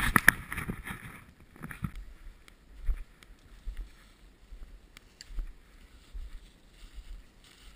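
Footsteps crunching and shuffling through dry fallen leaves and brush, with irregular low thumps from the camera being carried on the walk. It begins with a brief loud rustle of handling.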